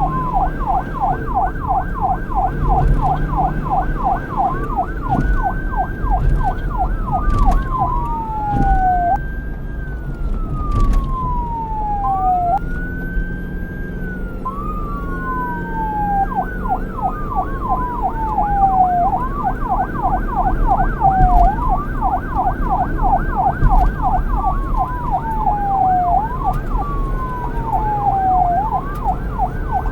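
Police car siren switching back and forth between a rapid yelp and a slower wail that rises quickly and falls away over a few seconds, over a steady low rumble.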